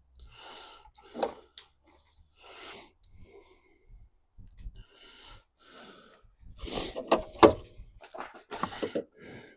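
Hands working a headlight assembly and its wiring: scattered rubbing, rustling and clicks, with a louder cluster of knocks and clicks about seven seconds in.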